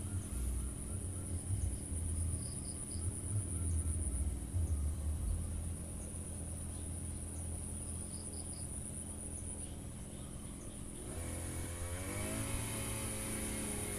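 Firman FGB 528 two-stroke brush cutter engine running at a steady lower speed with some uneven low thumps in the first half, then revving up about eleven seconds in.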